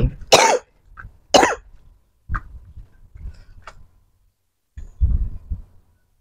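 Two short, sharp coughs about a second apart, followed by a couple of light clicks and a low thud from handling the car's door.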